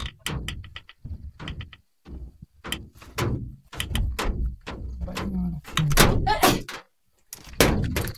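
Irregular knocks, scrapes and rustling of a hand groping into a gap between old wooden boards packed with dried mud, with a few brief voice sounds mixed in.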